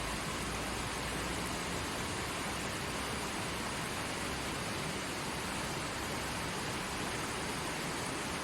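Small forest stream flowing over rocks: a steady, even rush of water with no breaks.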